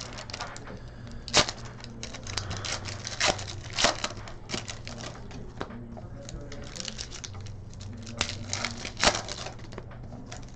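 Trading card pack wrappers being torn open and crinkled by hand: a run of sharp crackles and ticks with a few louder snaps, over a low steady hum.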